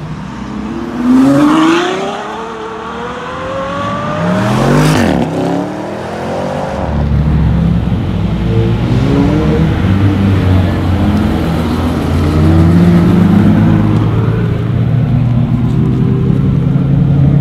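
Ferrari F12 N-Largo S's V12 engine with an aftermarket exhaust, revved twice with a rising pitch, about a second in and again around five seconds in, the second rev dropping back. After that the engine runs at low revs with a gently wavering pitch.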